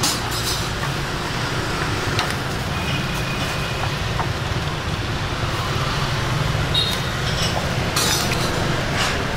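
Steady low rumble of a street-side kitchen, with a few sharp clinks of a metal ladle and crockery: one near the start, one about two seconds in and a brighter one near the end, as beef in a ladle is dipped into a pot of boiling broth.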